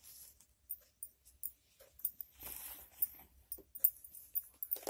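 Blouse fabric rustling as it is handled and folded on a table, with a few light scrapes and taps; the loudest rustle comes about two to three seconds in.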